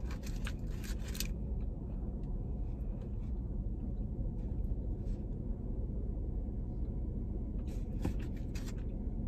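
A steady low rumble inside a car cabin, with a few short, soft chewing and mouth clicks in the first second and again about eight seconds in.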